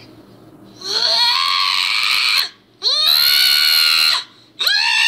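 Cat yowling: three long, loud, drawn-out calls, each rising in pitch at the start and then held.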